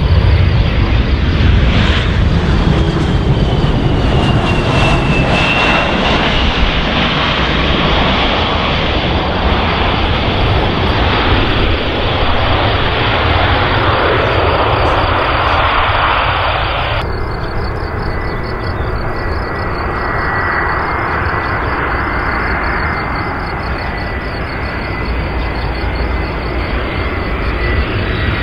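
Jet engines of regional jets on the runway, a loud steady jet noise with a whine that falls in pitch a few seconds in. About two-thirds of the way through the sound changes abruptly to an Airbus A320-family airliner's engines on approach, with a steady high whine over the engine noise.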